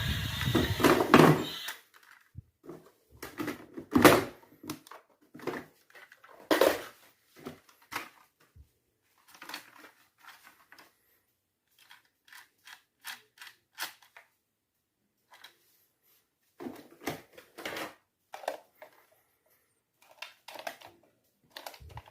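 Scattered clicks and light knocks of hard plastic toys being handled and moved about, after a louder, dense noisy sound that stops about two seconds in.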